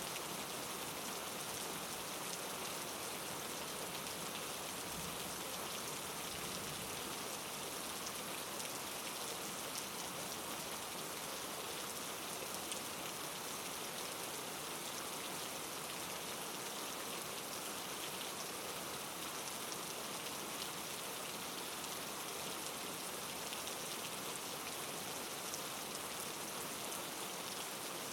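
Steady rain falling, an even hiss with scattered drop ticks on a surface, with no break or change.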